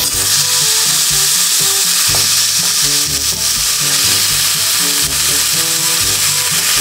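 Freshly washed chunks of pork belly dropped into a hot nonstick wok, sizzling loudly from the moment they hit the pan and keeping up a steady hiss as the water on the meat boils off.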